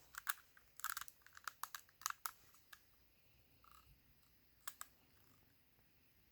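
Rubik's cube layers being turned by hand: a quick run of light plastic clicks over the first three seconds, then two more clicks a little later.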